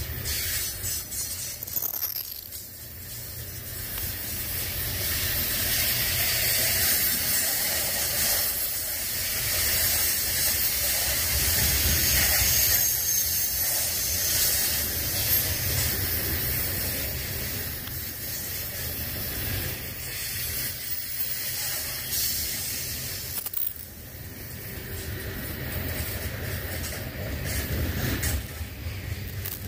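Freight train rolling past on the track: a steady hiss of steel wheels on rail over a low rumble, growing to its loudest about twelve seconds in.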